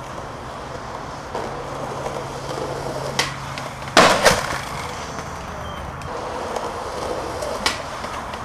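Skateboard wheels rolling on concrete, with two loud sharp clacks of the board about four seconds in and a single sharp pop near the end as the skater ollies.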